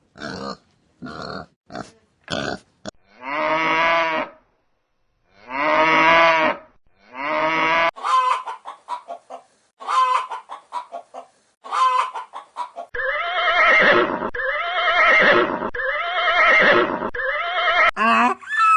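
A series of recorded farm animal calls, one after another: two long pitched calls, then a rapid run of short calls, then four long wavering calls.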